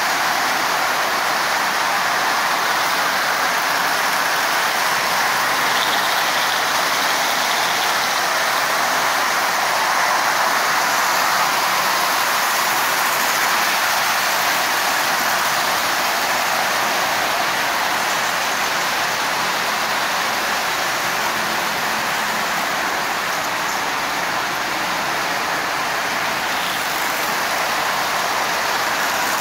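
Several Marx toy trains running at once on three-rail tinplate track: a steady rushing noise of metal wheels on the rails and the locomotive motors, even and unbroken throughout.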